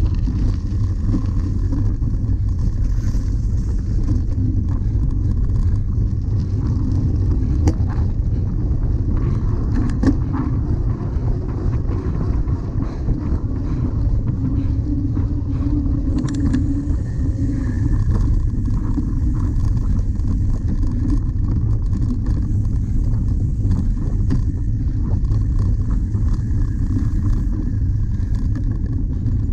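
Steady low rumble of wind and tyre noise on the microphone of a camera carried on a cyclocross bike while it is ridden over the course, with a few sharp knocks from bumps.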